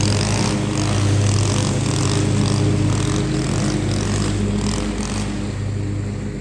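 Gas string trimmer (weed eater) running at speed, its line whipping through grass and weeds in repeated bursts of scratchy cutting noise; the cutting stops about five seconds in while the engine runs on.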